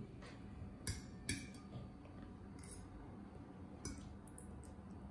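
Faint clinks and scrapes of a metal fork against a ceramic bowl while someone eats, five or so short ones scattered over a few seconds.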